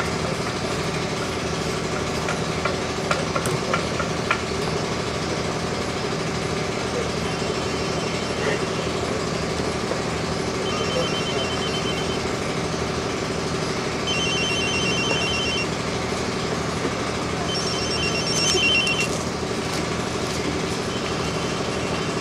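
A telephone rings with a rapid trilling electronic ring, five rings about a second and a half long, repeating every three and a half seconds or so from about seven seconds in, over a steady low hum.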